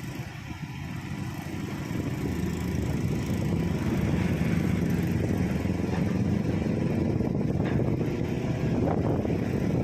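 A large engine running, getting louder over the first four seconds and then holding steady.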